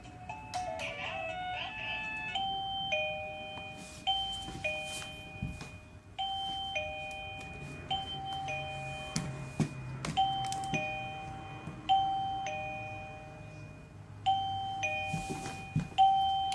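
Sinvitron wireless doorbell receiver chiming. A quick run of electronic notes comes first, then a two-note ding-dong, a higher note falling to a lower one, repeated about every two seconds, with a few sharp clicks in between.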